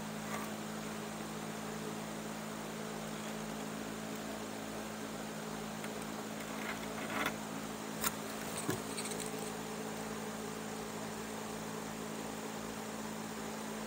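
A steady low hum, with a few faint clicks and rustles of chair cane being threaded by hand about seven to nine seconds in.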